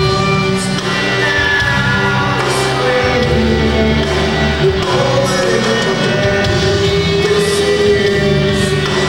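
Live rock band playing with electric guitars, bass and drums, a singer holding long notes over it, heard from the audience in a large, echoing hall.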